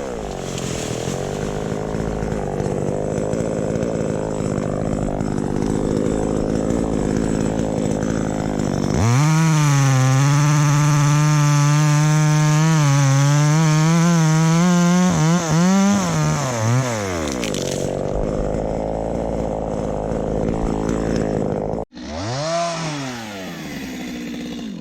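Two-stroke chainsaw running at a low speed, then revved hard for about seven seconds, its pitch dipping and rising as it cuts wood, before it drops back to idle. A short rev that falls away again comes near the end.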